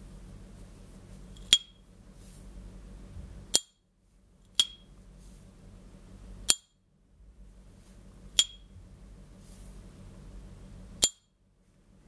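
S. T. Dupont Ligne Gatsby lighter's lid opened and snapped shut three times: six sharp metallic clicks, each opening ringing with the lighter's high, bright 'ping'.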